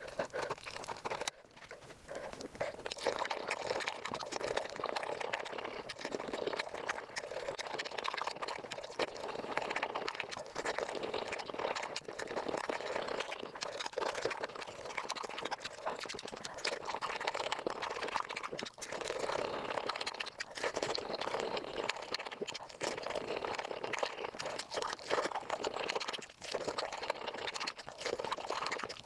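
Close-miked eating of chicken feet: wet chewing, sucking and crunching of skin and small bones, sped up so the bites and slurps run together in a dense, unbroken stream of wet clicks.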